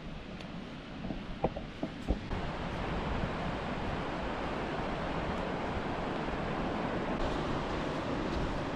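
Ocean surf washing steadily onto a sandy beach. In the first couple of seconds, wind gusts buffet the microphone and a few light knocks sound; then the surf becomes an even, unbroken hiss.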